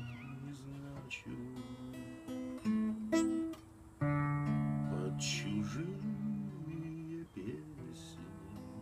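Acoustic guitar playing the closing chords of a song, strummed and left to ring, with a strong new chord about four seconds in and the sound dying away near the end.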